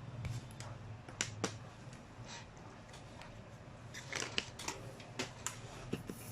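Scattered sharp snips and clicks of a charging cable's insulation and shielding being cut and stripped, over a low steady hum.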